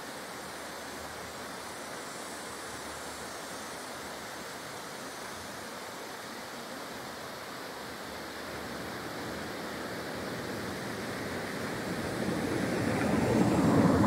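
Steady rushing of a waterfall, with the rushing noise growing louder over the last several seconds.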